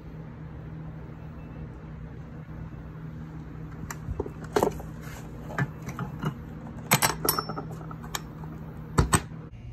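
A wooden toolbox and its metal hardware being handled: a string of sharp metallic clinks and wooden knocks begins about four seconds in, the loudest near the end, over a steady low hum.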